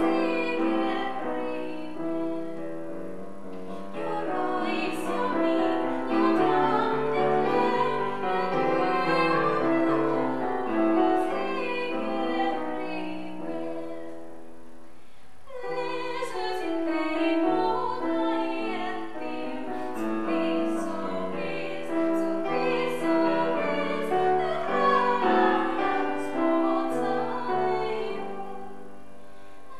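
A woman singing classical art song in a trained voice, accompanied on a grand piano. It comes in phrases, with a brief lull about halfway through.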